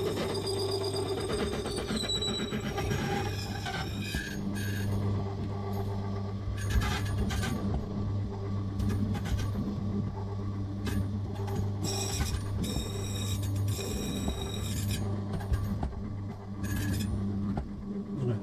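Silca Lancer mortice key machine running with a steady hum while its cutter grinds into a key blank being traced from the original, with short scraping strokes and stretches of high ringing whine as the cutter bites. Near the end the hum stops.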